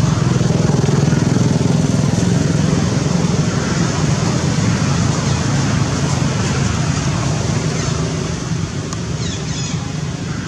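A motor vehicle engine running steadily as a low rumble, fading over the last couple of seconds.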